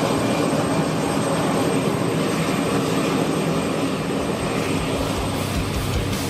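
Attack helicopter running: a loud, steady mix of turbine and rotor noise with a low engine drone.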